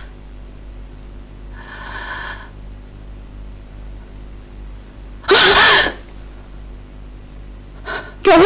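A woman's distressed vocal outbursts, sobbing cries and gasps: a faint one about two seconds in and a loud cry about five seconds in. A low steady hum runs underneath.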